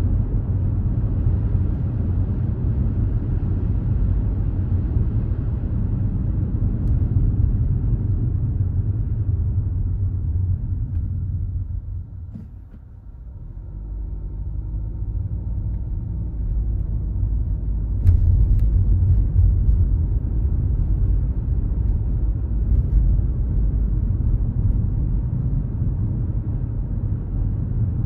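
Low, steady rumble of road and wind noise inside a moving car. The rumble drops away for a moment about halfway through, then builds again as the car picks up speed.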